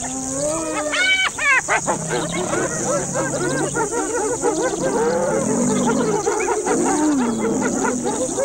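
A chorus of wild animal calls: many overlapping cries that rise and fall in pitch, with a few higher, sharper yelps about a second in.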